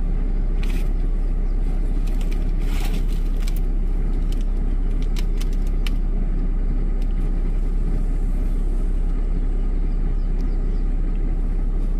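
Vehicle engine idling with a steady low rumble. A few brief, sharp cracks sound over it in the first half.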